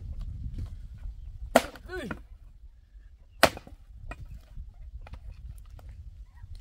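Two sharp knocks about two seconds apart, the first followed by a short cry falling in pitch, over a low rumble.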